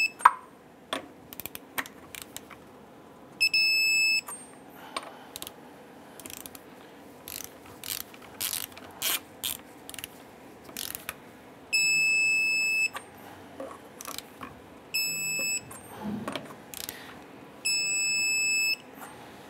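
Digital torque wrench tightening wheel lug nuts to 135 foot-pounds: its ratchet head clicks as it is worked. Four times, once as each nut reaches torque, it gives a steady high beep of about a second.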